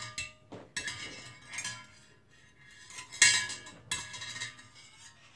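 Metal tongs clinking against a stainless steel saucepan and the metal instruments in it while picking the instruments out. Several ringing clinks, the loudest a little over three seconds in.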